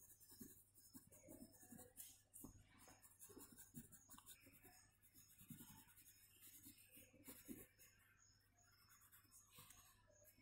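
Faint scratching of a graphite pencil on drawing paper: quick, repeated shading strokes, pausing briefly near the end.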